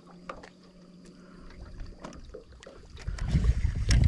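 Wind buffeting the microphone, a low gusty rumble that turns loud about three seconds in, with a few small clicks before it.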